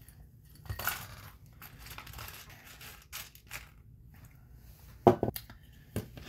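Small plastic model-kit parts clicking and rattling against each other and a clear dish as they are sorted through by hand, with a louder knock about five seconds in.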